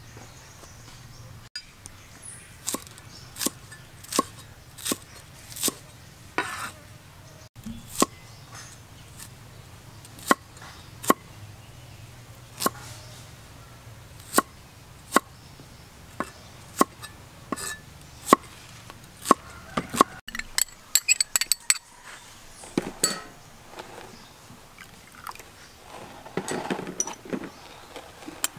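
Knife chopping on a wooden chopping block, cutting vegetables such as red onion with single sharp strikes about one a second. A quick run of fast strokes comes about two-thirds through, and softer, irregular sounds follow near the end.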